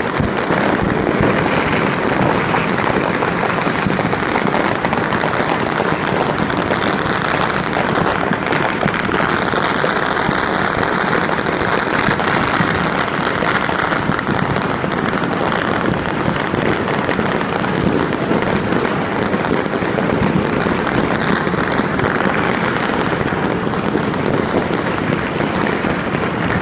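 Dense crackling of countless firecrackers and fireworks going off all over a city at once, merging into a steady din in which no single bang stands out.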